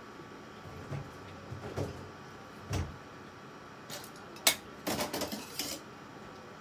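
Kitchen handling sounds: a few soft knocks, then a sharp click about four and a half seconds in, followed by a brief clatter of dishes and utensils.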